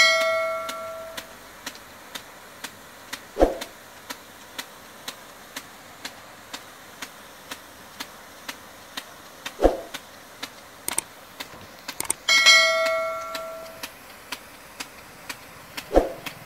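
Pelican HT-42G 1.5-inch water rain gun spraying, its impact arm ticking about twice a second. A ringing metallic clang comes at the start and again about 12 seconds in, and three dull thumps fall about six seconds apart.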